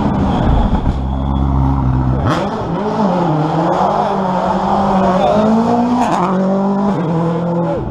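Rally car engine revving hard up and down through gear changes as it climbs round the bends towards the microphone and passes close by, with a sharp drop in revs about two seconds in.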